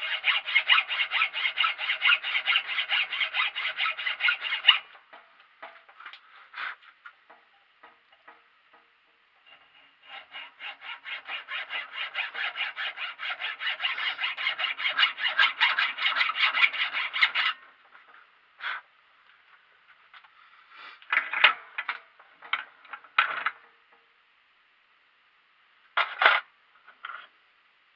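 Hacksaw cutting through a piece clamped in a bench vise in quick, even back-and-forth strokes: two runs of several seconds with a pause between. Near the end, a few short knocks and clatters of handling.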